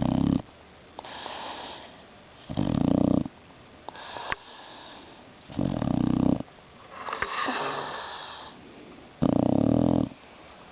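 Boxer mix dog snoring in its sleep: four loud, rasping snores about three seconds apart, with softer breaths between them.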